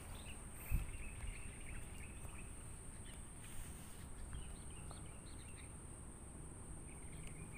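Faint outdoor ambience of small birds chirping in short broken phrases, over a steady high-pitched tone and a low rumble on the microphone. There is one soft thump about a second in.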